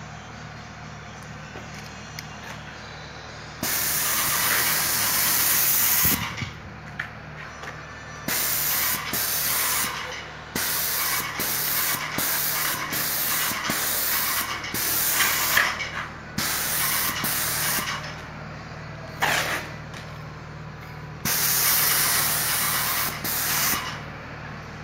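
Vonder airless paint sprayer firing through a 517 tip at about 1,800 psi: a loud hiss of spray that comes in bursts as the gun is triggered and released. There is one long burst a few seconds in, then a run of short bursts, and another long burst near the end, over a steady low hum.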